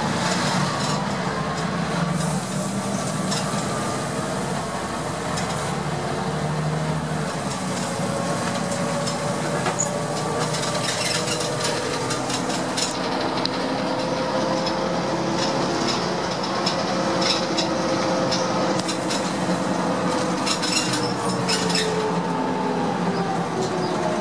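Inside a Heuliez GX 417 bus under way: steady engine and road noise with a whine that slowly climbs in pitch as it gathers speed and drops again near the end, with scattered small rattles from the cabin.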